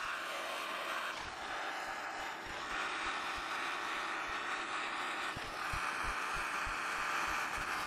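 MAP gas torch burning with a steady hiss, its flame heating a steel tip to red for hardening. The hiss dips briefly a few times as the flame is moved about the tip.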